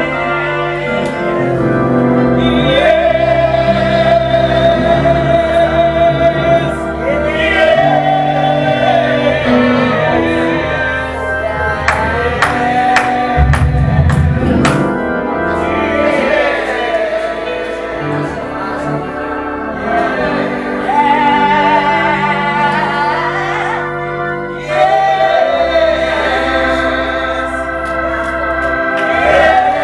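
Gospel worship singing over held chords, the sung melody wavering with vibrato and rising in phrases. A short run of drum hits comes about halfway through.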